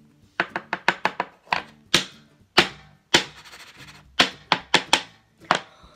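A run of sharp taps and knocks from handling an open jar of loose setting powder: a quick cluster of about six near the start, then irregular single taps. Faint background music runs underneath.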